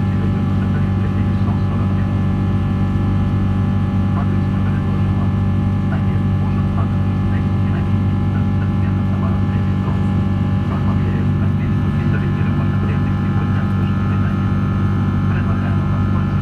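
Cabin noise of a Boeing 777-300 in flight, heard from a window seat beside the engine: a steady low drone with several steady tones above it.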